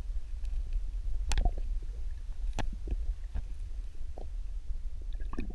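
Muffled underwater rumble of water moving against the camera, with a few sharp clicks and knocks from handling, the loudest about a second in and another at two and a half seconds.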